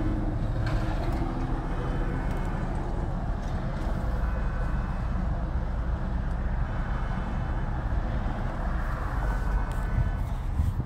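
Steady low rumble of a car heard from inside its cabin, with faint short horn-like toots from further off every two to three seconds, which the owner takes for a vehicle horn sounding repeatedly.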